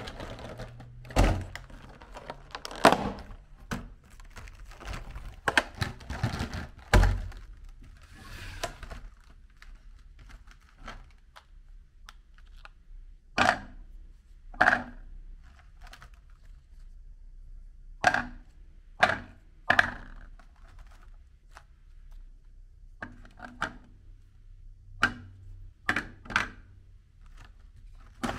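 Hard sandwich cookies being handled and set down one at a time on a plate: a busy clatter of taps and clicks for the first several seconds, then a string of single sharp clacks a second or two apart.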